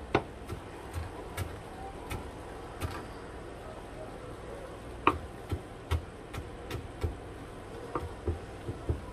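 Chef's knife chopping parsley on a cutting board: irregular sharp knocks of the blade striking the board, about one or two a second.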